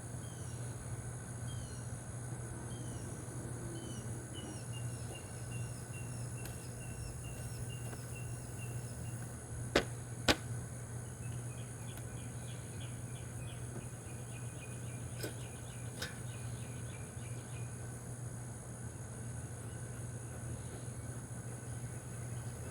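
Steady outdoor insect drone with a bird calling in runs of short repeated chirps. Two sharp clicks or knocks come close together about ten seconds in, with two fainter ones a few seconds later.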